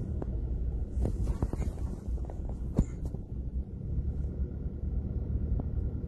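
Low, uneven throbbing rumble of a car driving through strong gusting wind, heard from inside the cabin. Scattered light ticks come between about one and three seconds in, with one sharp click just before three seconds.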